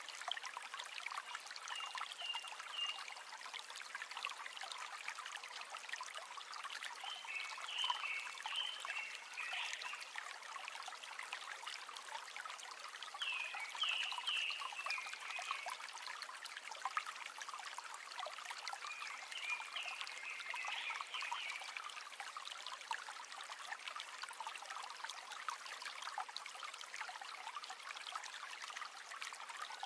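River water trickling and babbling over stones, a steady, fine-grained rush. Short high animal calls come in four brief bouts over it.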